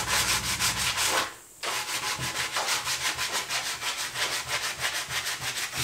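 Hand sanding of a carved wooden log bench seat with a hand-held sanding pad: fast, even back-and-forth rubbing strokes, about seven or eight a second, putting highlights into the wood. The strokes break off briefly about a second in and then resume steadily.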